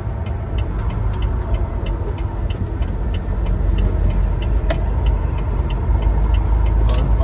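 Semi-truck engine and road rumble heard inside the cab, with the turn signal clicking steadily about two to three times a second as the truck turns.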